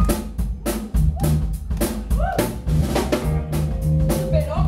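Live rock band playing: a Tama drum kit beating out snare and bass drum hits, over electric bass and electric guitar.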